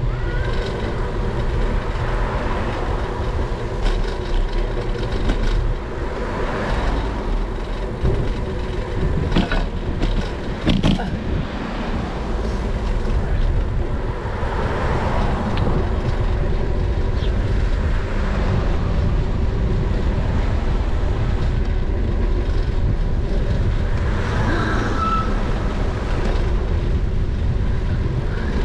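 Steady wind and road rumble from a bicycle-mounted action camera while riding along a paved street, with a few sharp knocks around ten seconds in.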